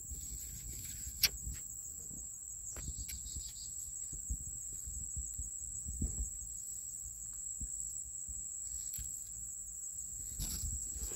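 Crickets singing, one steady high-pitched trill, over the rustle and small bumps of fig leaves brushing and handling noise on the phone's microphone, with a sharp click about a second in.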